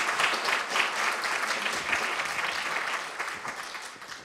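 An audience in a hall applauding at the end of a lecture, the clapping fading out about a second before the end.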